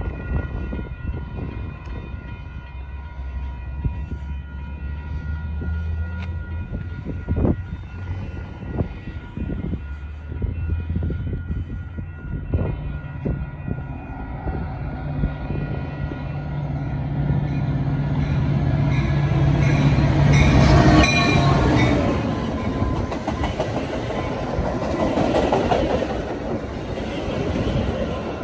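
Metra commuter train approaching and pulling into the station cab car first, on bi-level stainless coaches. It grows louder from a low rumble to the clatter of wheels over the rails, loudest about 20 seconds in.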